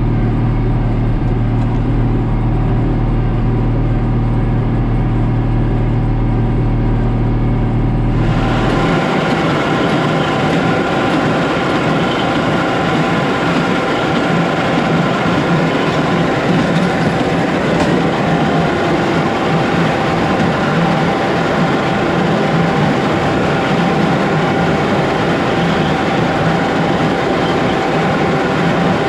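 John Deere 4055 tractor's six-cylinder diesel and a New Holland BC5070 small square baler running. For about the first eight seconds there is a steady deep engine hum. It then changes abruptly to a busier, noisier mechanical clatter with less of the deep hum.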